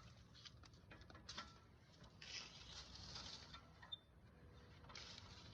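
Faint scattered clicks and short scrapes of a wrench working on a brake caliper bolt as it is tightened.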